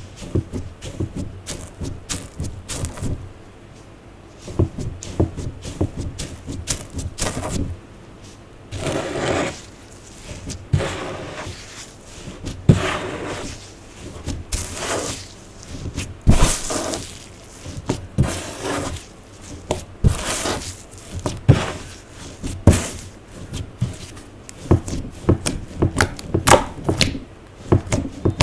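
Clear slime being squished and stretched by hand, with many sharp sticky clicks and pops and a few longer squelching pulls.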